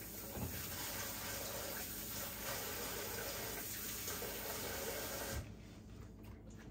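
Water running steadily from a kitchen tap, cut off abruptly about five seconds in.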